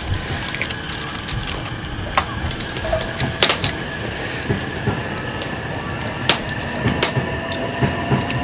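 Wood fire with pine cones burning in a fire pit, crackling with sharp irregular pops over a steady hiss, and a faint steady high tone underneath.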